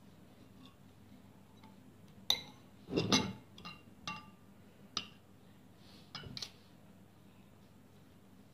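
A metal spoon clinking against a glass bowl while scooping out sauce: a run of about eight sharp clinks with short ringing, from a little over two seconds in to about six and a half seconds in.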